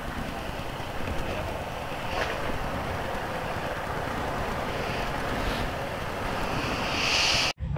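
Steady rushing wind noise on a helmet camera's microphone as the scooter moves slowly, with a brief louder hiss near the end before the sound cuts off abruptly.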